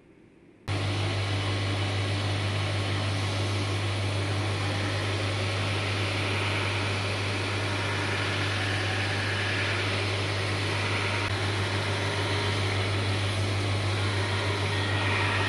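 A power tool running steadily with a strong low hum under a dense hiss, cutting in abruptly about a second in.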